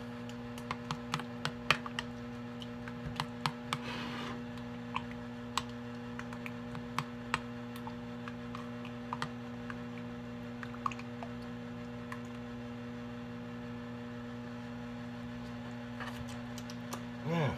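Utensil stirring a sauce in a bowl, with light irregular clicks as it knocks against the bowl, thinning out after about twelve seconds. A steady electrical hum underneath.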